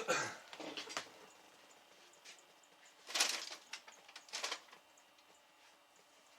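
Handling noises: a sharp knock at the start, a few light clicks and rustles, then two short clusters of knocks and rustling about three and four and a half seconds in, as things are moved about and set down.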